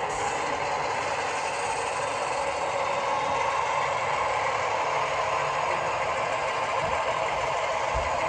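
HO-scale model train running on the layout: a steady mechanical rattle with a hiss and no clear rhythm.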